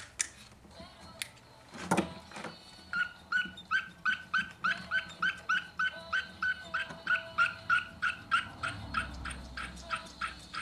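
A dog yapping in a long run of short high yips, about four a second, after a couple of clicks and a knock in the first two seconds.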